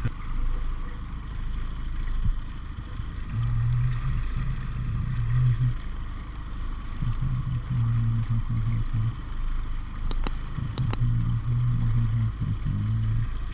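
Small boat's outboard motor running at trolling speed over steady water and wind noise, its low note swelling and fading every couple of seconds. Three sharp clicks come close together about ten seconds in.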